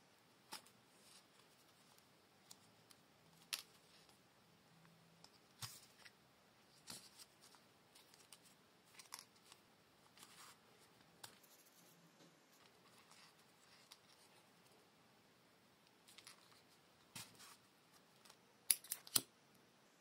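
Faint scratches and clicks of hand saddle stitching, with needles and thread drawn through leather, scattered every second or so. Just before the end comes a quick run of three sharp clicks, the loudest sounds, as a flint lighter is struck.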